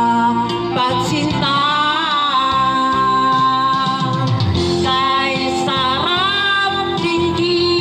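A man singing into a corded microphone over backing music, with long held notes that waver in pitch.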